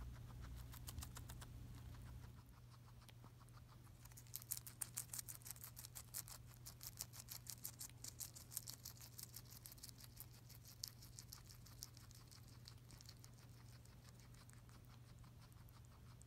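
Guinea pig chewing a lettuce leaf: rapid, crisp crunching clicks, strongest from about four seconds in and tailing off after about eleven seconds. A faint steady hum runs underneath.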